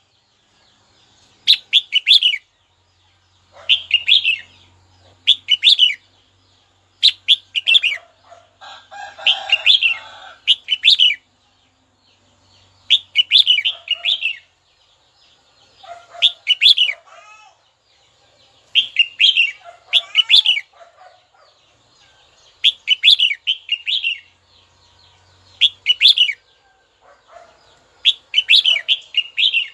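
Red-whiskered bulbul singing short, quick warbled phrases, about a dozen of them with pauses of a second or two between, a bit busier in the middle.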